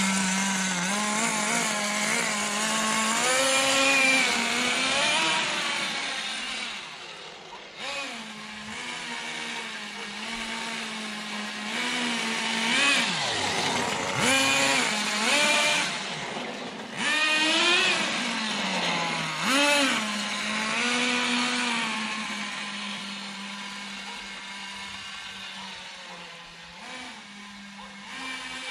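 Thunder Tiger Pro-18BXS nitro glow engine of a 1/10 RC monster truck, running at a steady idle and revving in repeated surges, its pitch climbing and falling as the truck drives about. The surges are loudest in the middle.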